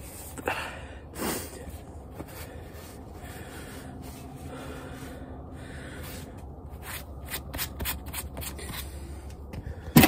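Blue shop towel rubbed over a face, with two short breathy swishes in the first second and a half, then the towel crinkled and handled in the hands, a quick run of small clicks and crinkles in the last few seconds.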